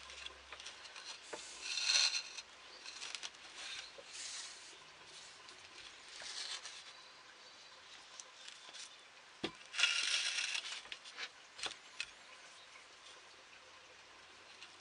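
Quiet swishes of organic twine being drawn through drilled holes in a wooden bowl every couple of seconds as it is stitched, the longest about ten seconds in, with a few light knocks as the bowl is handled.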